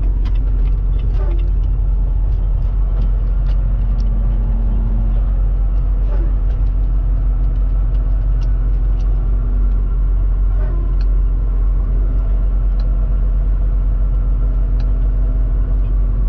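Semi-truck's diesel engine and road noise heard from inside the cab while driving: a steady low drone.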